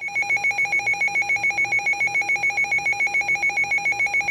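Emergency Alert System attention tone coming over an AM/FM radio, signalling that a warning broadcast is about to follow. It is a loud two-tone alarm that pulses rapidly, about seven times a second, without a break.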